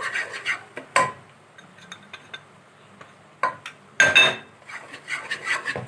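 A metal spoon clinking against a pot and bowl while flour is spooned into melted ghee and oil for a béchamel: a few sharp clinks, the loudest a ringing one about four seconds in.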